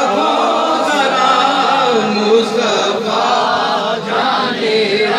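Men's voices chanting a devotional Urdu salaam, a continuous melodic recitation.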